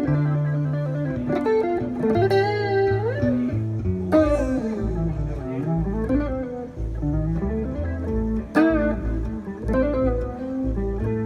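Live blues band playing an instrumental passage: a guitar plays a lead line of bent, sliding notes over a steady bass and chords.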